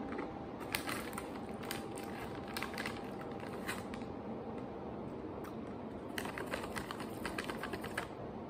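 Crunchy imo kenpi (fried candied sweet-potato sticks) being chewed, with a plastic snack bag crinkling as a hand reaches in for more. The crackles come in short clusters, several times over.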